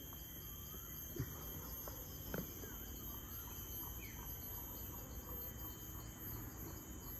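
Steady, shrill chorus of tropical forest insects, several high trills and a pulsing call together, with a few faint bird chirps. Two short knocks come about a second and two and a half seconds in.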